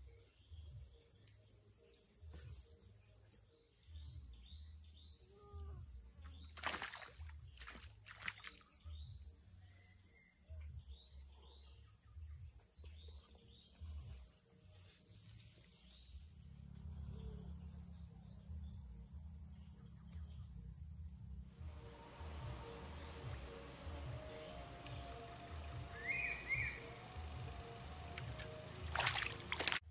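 Insects in swampy grassland buzzing steadily, with scattered short high chirps in the first half and a low rumble underneath. About two-thirds of the way through a louder steady hiss comes in, and a sharp knock sounds near the end.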